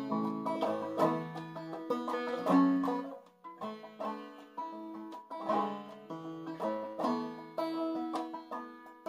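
Long-neck banjo played clawhammer style in double A tuning: a steady run of plucked notes ringing over one another, with a brief lull about three seconds in.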